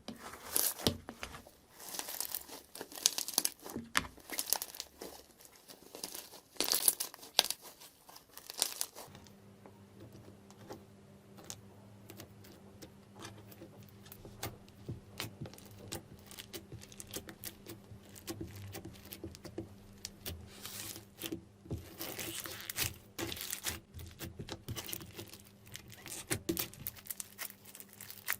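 Slime being squeezed and pressed by hand, giving a dense run of sharp crackles, clicks and sticky pops, louder in the first third and again near the end. A faint steady low hum comes in about a third of the way through.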